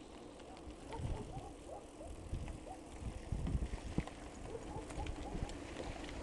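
Mountain bike rolling downhill on a gravel dirt track: a low rumble of tyres and wind on the microphone, with scattered knocks and rattles as the bike goes over bumps.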